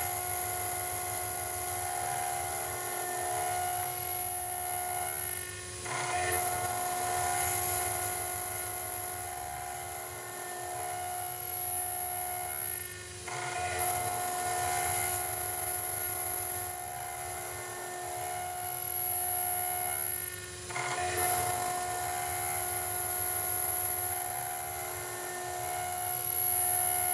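CNC router spindle milling a brass plate with a small end mill: a steady, high-pitched cutting whine over the motor's hum. The cutting noise breaks off briefly three times, about every seven seconds, then resumes.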